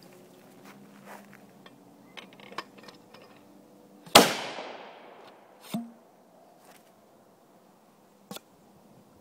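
Homemade 12-gauge pipe shotgun firing once about four seconds in: a single sharp, very loud crack with a long echoing tail that dies away over about a second and a half. Light handling clicks and rustling come before it, a thud follows about a second and a half after the shot, and a short click comes near the end.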